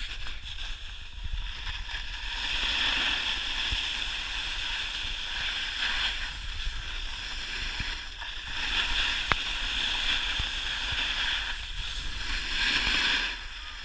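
Snowboard sliding down a groomed slope: the hiss of the board on the snow swells and eases several times as it turns, over a low rumble of wind on the microphone. One sharp click about nine seconds in.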